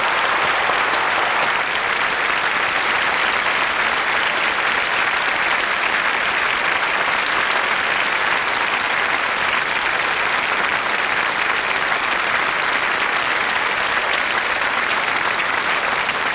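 Audience applauding steadily: many hands clapping in a dense, even wash.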